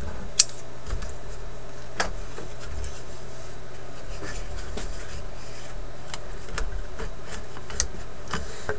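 Small handling noises from work on the cabinet's paper lining: scattered sharp clicks and taps, the loudest about half a second in, with light rubbing and scratching, over a steady low hum.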